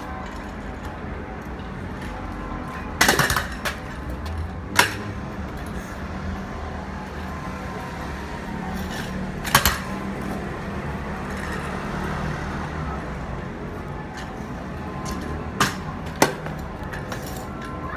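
Steady city-street background with a low traffic hum, broken by about five sharp knocks of a stunt scooter's wheels and deck on the pavement.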